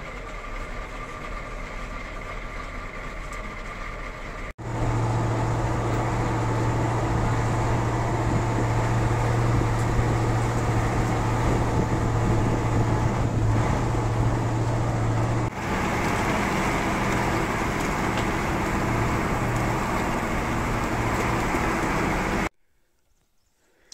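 Ural truck's engine running steadily under way, with a strong low drone and rattle from its open passenger body. The sound jumps abruptly louder about five seconds in and cuts off suddenly near the end.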